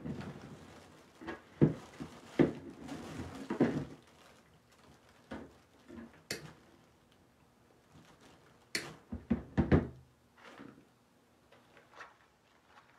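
Irregular knocks, thumps and rustling from handling a faux cabbage pick and artificial greenery while forcing the pick into a styrofoam wreath form. The handling comes in two busy spells, in the first few seconds and again around nine to ten seconds in.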